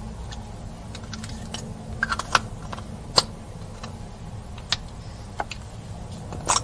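Slime being worked by hand, giving scattered sticky clicks and pops at irregular intervals, with a cluster of them about two seconds in and a louder one near the end.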